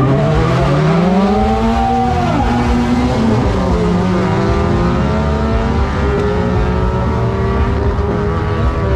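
Drag race car engine revving hard: the pitch climbs over about two seconds and holds high, dips briefly after about three and a half seconds, then is held high and steady.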